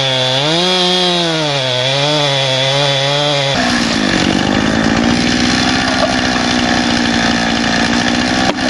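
Two-stroke chainsaw running hard while cutting into a large tree trunk, its engine note rising and falling as the bar loads up. About three and a half seconds in, the sound changes to a steadier, higher-pitched rasp.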